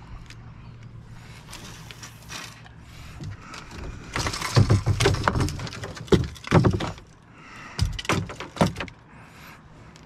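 Knocks, clunks and small rattles of fishing gear being handled in a kayak, in three bunches about four, six and eight seconds in, over a faint low hum.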